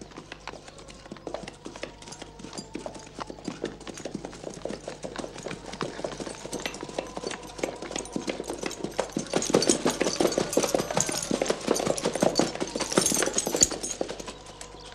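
Hoofbeats of many horses at once, a dense clatter that grows louder, peaks about ten seconds in, then falls away near the end.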